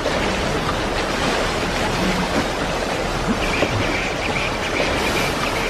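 Water splashing and churning steadily as an elephant wades through a river.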